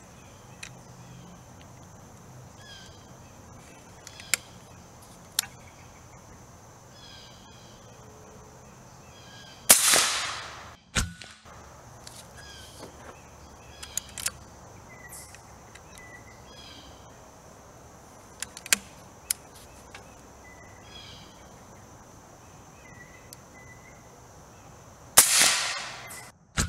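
AirForce Texan SS .457 big bore air rifle with TX2 valve firing light 122-grain bullets: two loud shots about fifteen seconds apart, each tailing off over about a second. Sharp clicks come between the shots as the rifle is handled and reloaded.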